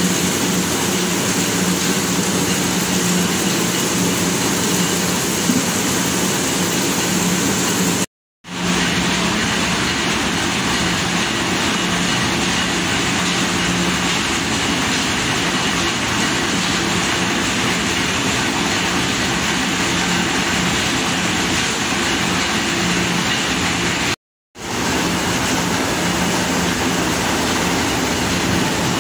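Corn mill machinery running: a steady, loud mechanical din with a constant low hum, cutting out completely for a moment twice.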